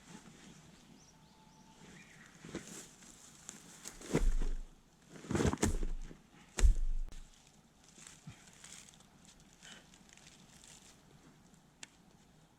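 Sawn firewood being handled and packed into a backpack: several dull thumps and knocks about four to seven seconds in, with lighter handling and rustling noises around them.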